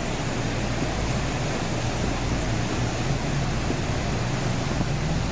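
Floodwater rushing and churning, a steady unbroken rushing noise with a low hum underneath.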